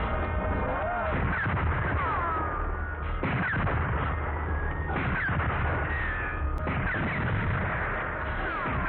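Film battle sound effects: gunfire and blasts over a continuous rumble, with sharp hits about three, five and seven seconds in. Horses whinny in high falling cries between them.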